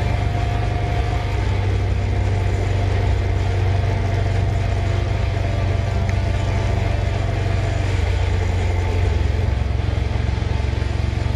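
Motorcycle engine running steadily at motorway cruising speed, heard from on the bike, with a constant rush of wind noise.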